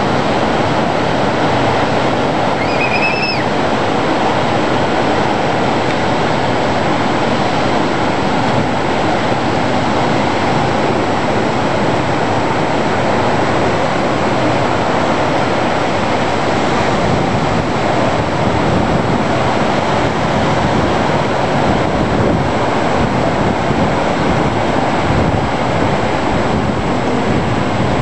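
Ocean surf breaking on a beach: a steady, loud rushing wash of waves with no pause. A brief high-pitched call sounds once about three seconds in.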